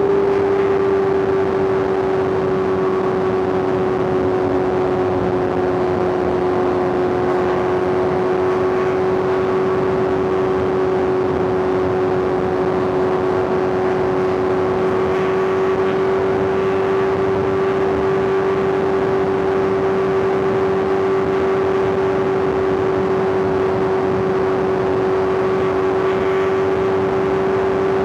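Inline-four superbike engine held at steady revs while cruising, a constant even drone that barely changes in pitch.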